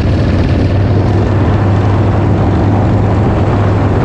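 Motorcycle engine running loudly at a steady speed, with a strong, even low drone and a wash of noise.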